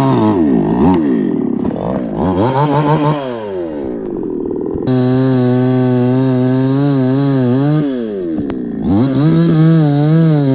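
Chainsaw engine running at high revs, its pitch dropping and climbing back several times as the chain is loaded in the cut, with a steady stretch in the middle.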